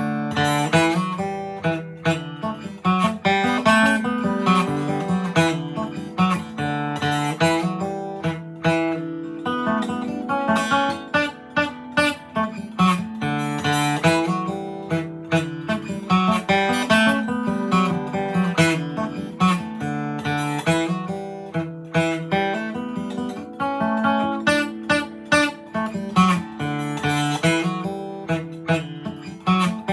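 Gibson J-45 acoustic guitar playing a quick fiddle tune (a reel or hornpipe) solo, picked note by note over bass notes.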